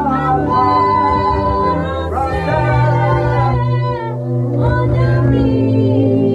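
Worship music: a voice singing a slow, wavering melody over steady held low chords.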